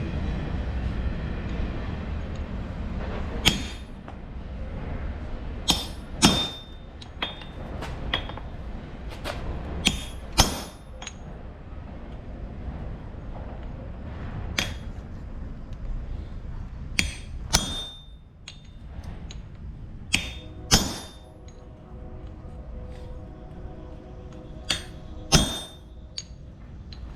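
Hammer blows on a hot railroad spike on an anvil as it is forged into an axe, about fifteen irregular strikes, some in quick pairs, each with a short metallic ring. A steady low rumble runs underneath.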